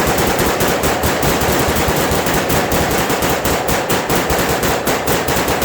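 Rapid gunfire: a long unbroken string of shots fired several times a second, each with a sharp crack.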